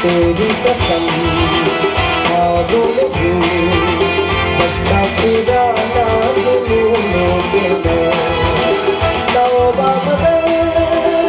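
Live band music: a male vocalist singing into a microphone over acoustic and electric guitars and an electronic drum kit keeping a steady beat.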